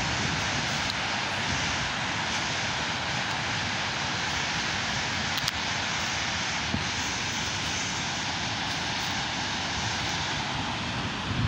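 A steady, even rushing noise, with no clear event standing out.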